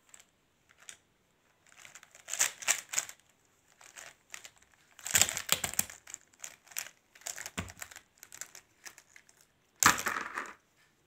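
Plastic felt-tip sketch pens (Faber-Castell Connector pens) clicking and rattling against each other as they are handled and tipped out in a heap onto a bed cover. The sound comes in three main bursts, the loudest near the end.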